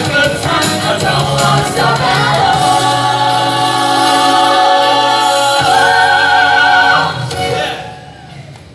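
Music from a DJ mix: layered sung notes held over the music, fading out about seven seconds in.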